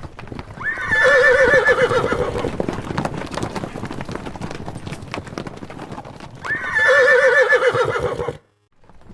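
Horse whinnying twice, each a quavering call of about two seconds, with hooves clopping in between; the sound cuts off abruptly near the end.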